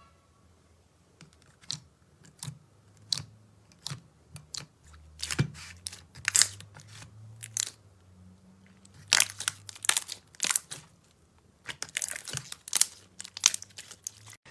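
Slime being squeezed and pressed by hand, giving irregular crackling pops and clicks, some single and some in quick clusters.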